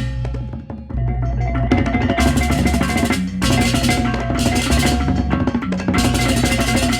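Balinese baleganjur gamelan music: drums under ringing gongs and clashing cymbals in a repeating rhythm, the cymbals coming in strongly about two seconds in.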